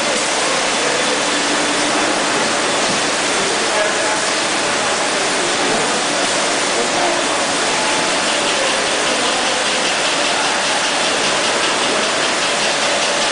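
Steady noise of a 6-litre PET bottle filling line running, its conveyors and machinery giving an even hiss, with a faint steady tone coming in near the end.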